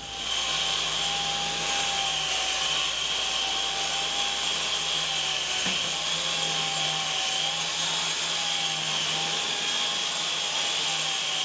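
Handheld concrete diamond grinder with a dust-extraction hose attached, running steadily as its diamond disc grinds the weak top layer of laitance off a concrete pad. A steady whine over a rushing hiss.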